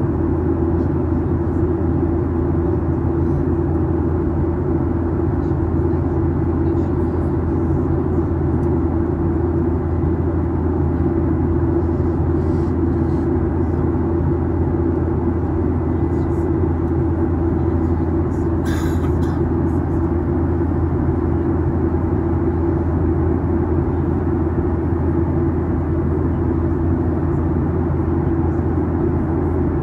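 Steady cabin drone inside a Boeing 737 MAX 8: engine hum and air noise with a low, even rumble. A single short click sounds a little past the middle.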